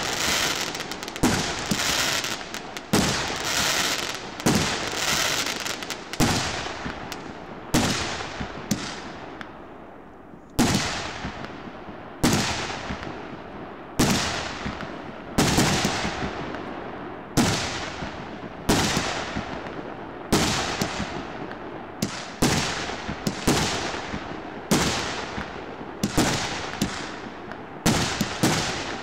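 A 100-shot, 1.5-inch firework cake firing shell after shell, about one every one to one and a half seconds. Each shot is a sharp bang followed by a fading hiss as the stars burn out, with a short lull about eight seconds in before the firing resumes.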